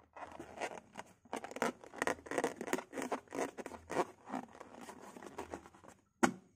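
Filled latex balloon squeezed and stretched between the fingers: a rapid run of scratchy rubbing and rustling of the rubber, with one sharp snap near the end.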